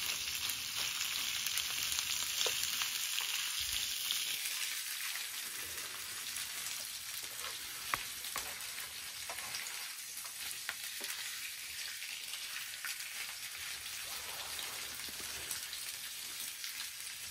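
Chunks of pork sizzling in oil in a frying pan on a portable gas burner, being stir-fried first before the kimchi goes in, turned with a silicone spatula that gives a few light clicks against the pan. The sizzle is strongest in the first few seconds and then eases a little.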